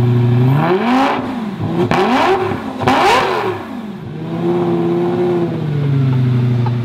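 Lamborghini Gallardo's 5.0-litre V10 revved three times in quick succession from idle, each rev rising and falling in pitch. It then holds a slightly raised idle for a moment before settling back to a steady idle.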